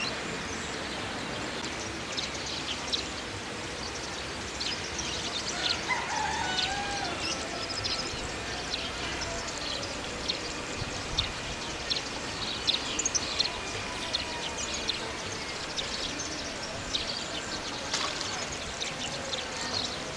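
Outdoor ambience: a steady background hiss with frequent short bird chirps, and a distant wavering call about six seconds in.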